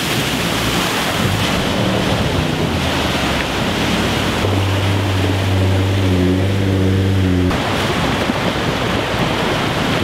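Off-road SUV driving through a muddy water crossing: continuous heavy splashing and wind noise on the microphone. An engine holds a steady note for about three seconds in the middle.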